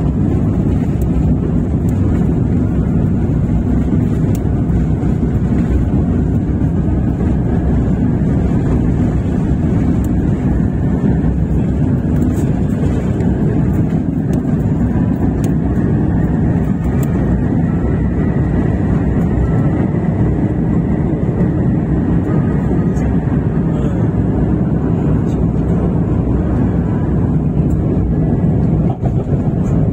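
Cabin sound of an Airbus A350-1000 on its takeoff roll: the Rolls-Royce Trent XWB engines at takeoff thrust and the air rushing past make a loud, steady roar. The roar holds as the aircraft lifts off in the second half.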